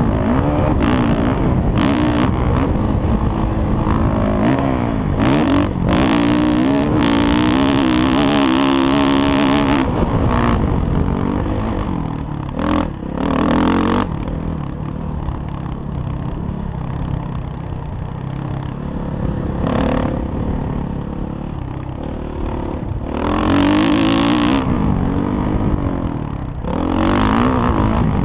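Motocross bike engine revving up and down as it is ridden around a dirt track, its pitch rising and falling with the throttle. It backs off briefly about halfway through and again near the end.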